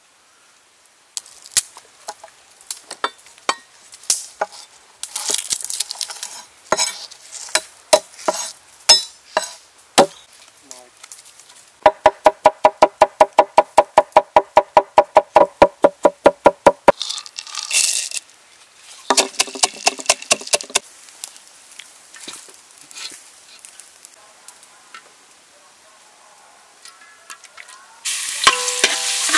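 A cleaver knocking on a wooden board while mincing garlic: irregular chops at first, then a fast even run of about five chops a second. Near the end, minced garlic hits hot oil in a metal wok and starts sizzling loudly.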